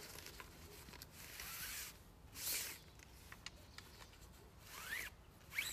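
Several brief swishing whooshes, the loudest about two and a half seconds in, with a faint whistle rising and falling in pitch near the end: a fishing rod being swung through the air.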